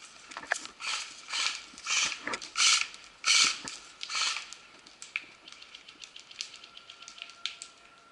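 Footsteps crunching through dry pine needles and twigs on a forest floor, about a step every two-thirds of a second for the first four seconds. After that come quieter small clicks and crackles.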